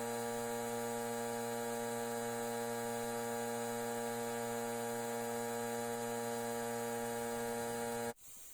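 Steady electrical hum with a fixed pitch and several overtones, cutting off abruptly about eight seconds in and leaving a faint hiss.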